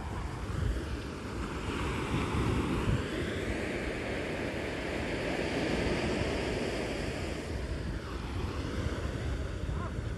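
Ocean surf on a sandy beach: a wave breaks and its wash swells about two seconds in, holds for several seconds, and eases off after about seven seconds.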